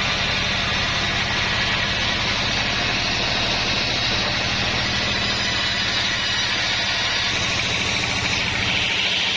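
Sawmill machinery running steadily: a constant low engine drone with a hiss and faint squeal from the saw, the hiss growing brighter near the end.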